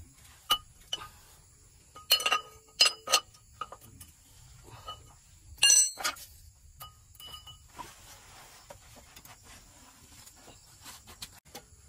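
Metal tools and parts clinking and tapping against each other while a truck's clutch is being worked on. The clinks come in scattered groups, with a cluster about two to three seconds in and the loudest just before six seconds, followed by a few lighter ticks.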